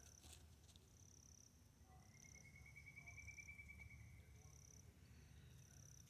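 Near silence: faint outdoor ambience with a thin, high chirp repeating about once a second and a soft pulsing trill in the middle, over a low rumble.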